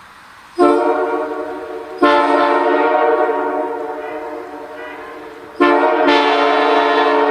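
Multi-chime locomotive air horn sounding its chord in three blasts: a short one about half a second in, a longer one from about two seconds, and another near the end that is still going. Each blast starts sharply and fades a little as it is held.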